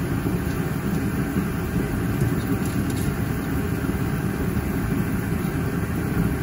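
Steady low rumbling background noise, like a fan or other machine running, with a few faint small clicks near the middle.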